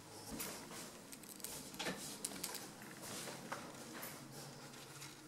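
Faint room tone of a small, hard-walled room with scattered soft clicks and knocks at irregular intervals, the handling and movement noises of someone walking through with a handheld camera.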